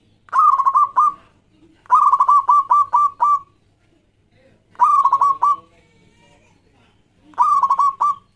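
Zebra dove (perkutut) singing: four bouts of quick staccato coos, each a run of short repeated notes, the second bout the longest.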